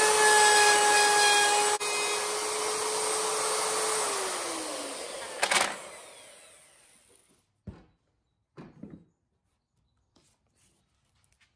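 Ryobi plunge router running with a steady whine while its bit cuts plywood, then switched off and winding down, its pitch falling, about four seconds in. A sharp knock comes about halfway through, followed by a couple of faint knocks.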